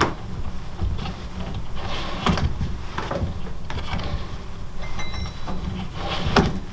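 Rawhide lacing of a 16-inch frame drum rubbing and creaking as it is pulled tight and wrapped at the centre of the lacing. It comes as a string of irregular scrapes, with the strongest near the end.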